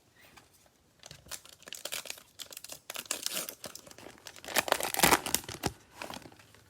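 Foil wrapper of a basketball trading card pack crinkling and being torn open. It is a run of sharp crackling rustles that starts about a second in and is loudest a little before the end.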